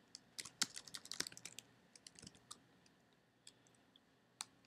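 Computer keyboard typing: faint, quick, irregular key clicks, busiest over the first two and a half seconds, then a few isolated keystrokes.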